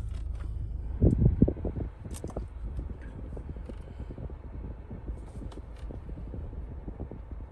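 Dual-zone climate-control rotary knobs of a Mahindra Scorpio N being turned, with faint clicks as they step through, over a steady low hum in the cabin. A louder low rumble comes about a second in.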